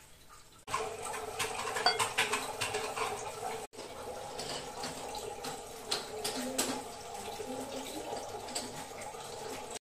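Steady running-water noise with scattered light clinks. It starts abruptly just under a second in and drops out for an instant near the four-second mark.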